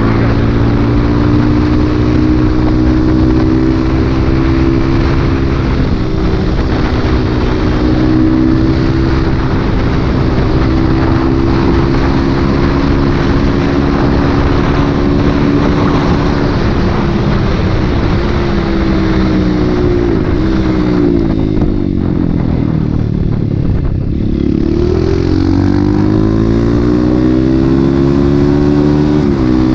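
Motorcycle engine running at steady cruising revs while riding. About two-thirds of the way through, the revs fall away as the bike slows, then climb again as it speeds back up, with a short dip near the end like a gear change.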